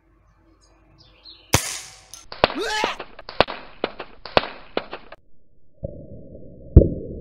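A single sharp shot from a Hatsan Striker Edge break-barrel air rifle. It is followed by a run of clinks and rattles as the aluminium beer can is struck and tumbles on the concrete. Near the end comes a muffled, deeper thump: the hit played again slowed down.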